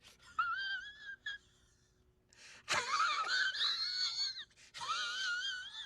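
Rubber axle bushing squealing as it is forced along a greased steel axle shaft: several high, wavering squeaks, with a scraping rush about two and a half seconds in as it slides on.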